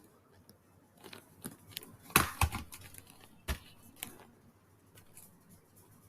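Scattered small clicks and light rustling, with a close cluster of them about two seconds in and one sharp click about a second later.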